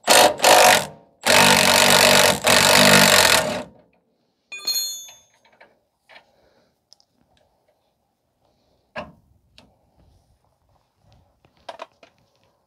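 Impact wrench running in four bursts on the rear shock absorber's mounting bolts, two short ones and then two of over a second each. About four and a half seconds in, a metal tool clinks with a short ring, followed by a few faint knocks.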